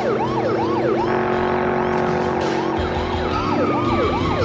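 Police car siren in a fast yelp, rising and falling about three times a second, fainter for a couple of seconds in the middle. Car engine noise runs beneath it.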